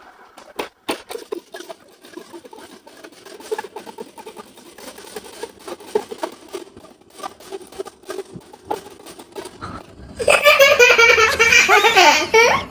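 Children laughing and shrieking loudly, starting suddenly about ten seconds in, after a quiet stretch with faint, scattered clicks.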